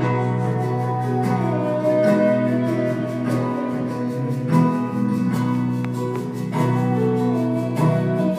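Background music led by guitar, with a gliding melody line over sustained chords.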